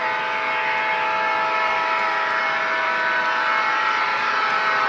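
MTH Railking CitiRail ES44AC model diesel's onboard sound system blowing its air horn in one long held chord, starting suddenly, over the running rumble of the locomotive on three-rail track, growing slightly louder as it approaches.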